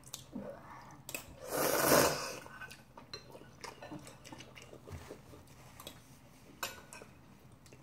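A person slurping ramyeon noodles once, loudly, for about a second, starting a little over a second in, with light clicks and scrapes of a metal spoon and chopsticks against ceramic bowls around it.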